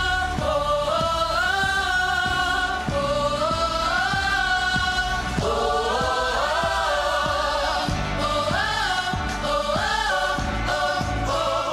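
Small vocal group singing wordless harmonies in several parts, sustained and gliding notes moving together, over a backing track with a steady beat.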